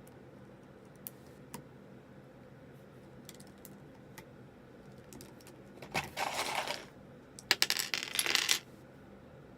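A few light plastic clicks, then loose plastic keycaps clattering in two bursts, about six seconds in and again, louder, from about seven and a half seconds.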